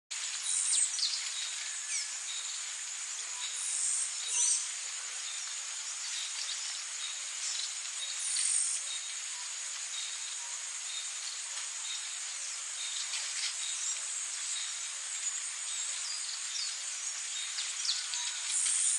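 Steady high-pitched drone of an insect chorus, with short bird chirps scattered through it. The insect sound swells louder for a moment about a second in, near four seconds, around eight and a half seconds, and near the end.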